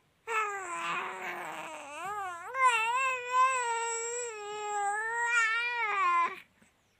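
Baby girl crying in one long, high-pitched wail: rough and falling in pitch at first, then a long wavering cry that stops near the end.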